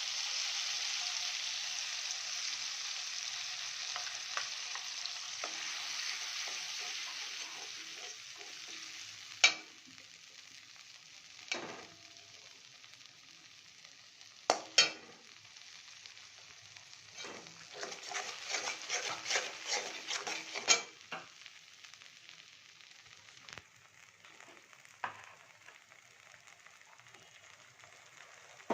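Tomato and oil sizzling in a kadai, the sizzle loud at first and dying down about nine seconds in as mustard paste goes in. A metal spatula knocks sharply on the pan now and then, with a short run of scraping and rattling strokes about two-thirds of the way through.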